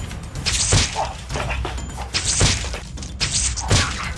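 Three edited whoosh-and-thud sound effects: each a short rush of noise ending in a low thump, like a body dropping and landing. Low background music runs underneath.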